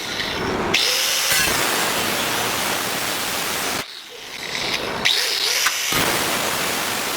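A power tool cutting through the steel of a Honda Civic's front fender: a loud, steady, noisy rasp that runs in stretches with brief pauses.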